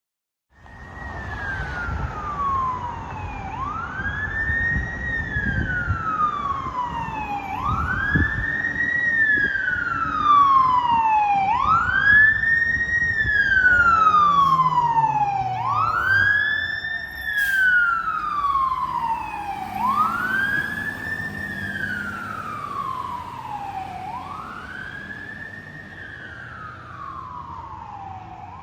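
Fire engine siren on wail: the pitch climbs quickly and slides slowly back down, about once every four seconds, over the truck's low engine rumble. It grows louder toward the middle, then fades.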